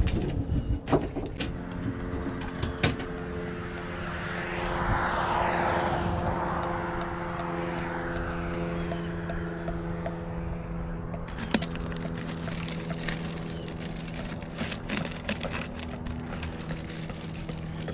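A steady low engine hum underneath, with a vehicle passing that swells up and fades away over several seconds. A few small sharp clicks come near the start and again later, from fishing tackle being handled.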